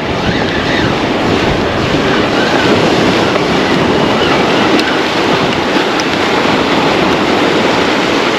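Choppy sea washing against shore rocks, with wind buffeting the microphone: a loud, steady rush.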